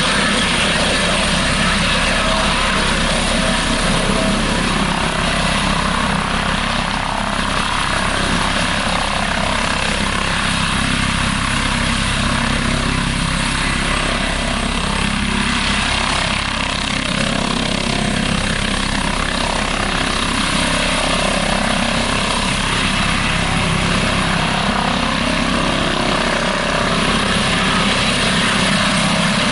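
Airbus ACH145 (five-blade H145 D3) helicopter in a steady low hover: twin turboshaft engines, five-blade main rotor and Fenestron shrouded tail rotor running at a constant pitch.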